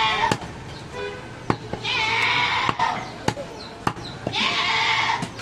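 A heavy butcher's chopper strikes goat meat on a wooden log chopping block, giving about five sharp knocks. Two long, high, wavering cries, about two and four and a half seconds in, are the loudest sounds.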